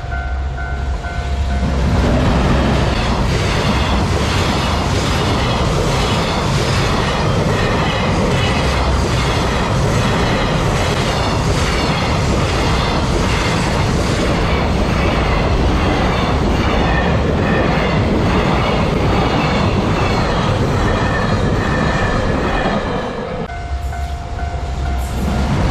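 Freight train hauled by an EF210 electric locomotive passing over a level crossing, its wheels clattering rhythmically over the rail joints for about twenty seconds as the wagons go by. The crossing's warning bell rings at the start, is drowned out by the train, and is heard again near the end as the train noise drops.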